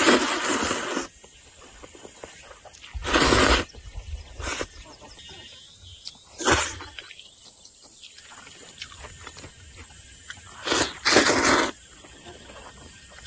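A person slurping noodles in loud slurps: a long one at the start, shorter ones about three and six and a half seconds in, and a longer double slurp near the end.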